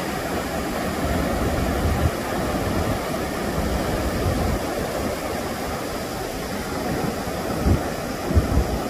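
Ocean surf breaking and washing in over the shallows, a steady rushing noise, with a few gusts of wind buffeting the microphone near the end.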